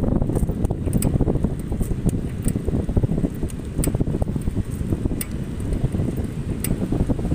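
Wind buffeting the microphone of a phone on the handlebar of a moving bicycle: a steady low rumble, broken by scattered sharp ticks and rattles.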